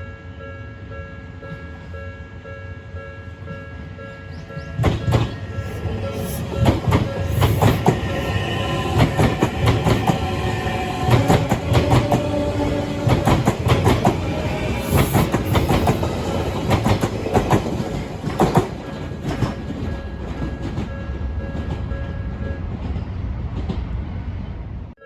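Japanese level crossing alarm ringing steadily while a train passes over the crossing. From about five seconds in, wheels rumble and click rapidly over the rail joints for some twenty seconds, then the sound drops off suddenly.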